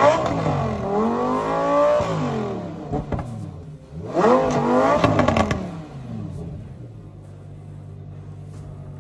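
Lamborghini Huracán's V10 being blipped twice in the stand: the revs climb and fall back, then a second rev a couple of seconds later, after which the engine settles to a steady idle.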